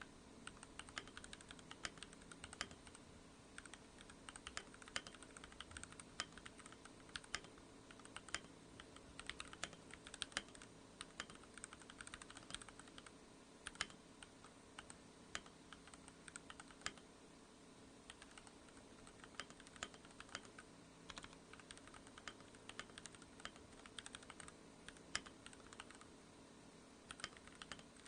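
Typing on a Rakk Pirah Plus 66 mechanical keyboard fitted with Gateron Milky Yellow linear switches: a quick, irregular run of key strokes, with a short lull around the middle.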